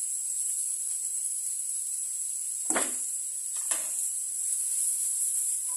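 Steady high-pitched hiss in a small kitchen, with two short knocks about a second apart midway as cookware is handled on the glass-top hob.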